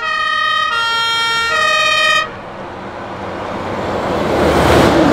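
Fire engine's two-tone siren sounding three notes, alternating between a higher and a lower pitch, then cutting off about two seconds in. After that a MAN fire tanker truck's engine and tyre noise grows louder as it drives past.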